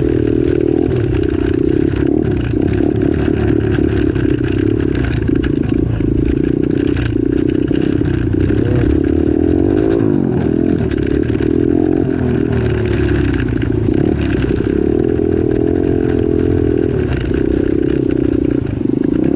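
Can-Am Maverick X3 Turbo's turbocharged three-cylinder engine working hard in all-wheel drive up a rough trail climb. It revs up and down over and over as the throttle is worked.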